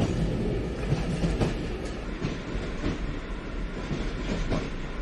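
Toy train running past on model track: a steady rattling rumble of plastic wagons rolling, with irregular clicks as the wheels cross the rail joints.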